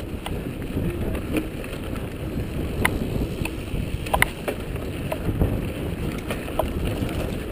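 Mountain bike descending a bumpy grass singletrack at speed: a steady low rumble of tyres and wind on the microphone, with scattered sharp clicks and rattles from the bike.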